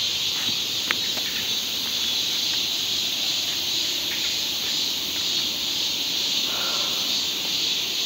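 Steady, unbroken chorus of insects, with a single sharp click about a second in.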